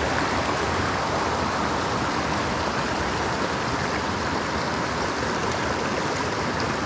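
Shallow mountain stream rushing over rocks in a riffle: a steady, even rush of water.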